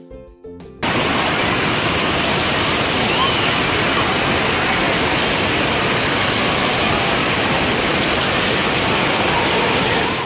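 Loud, steady rush of falling and spraying water, as at a waterpark, starting abruptly about a second in after a moment of music.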